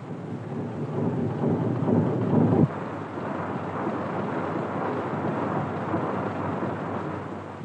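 Early stationary diesel engine running: a dense, rapid mechanical clatter, with part of the lower noise dropping away about two and a half seconds in.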